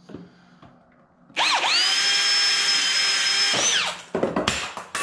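Power drill with a hole saw boring through a wooden board: the motor spins up about a second and a half in, runs at a loud steady whine for about two seconds, rises briefly in pitch and stops, followed by a few knocks. The user judges the hole saw worn and due for replacement.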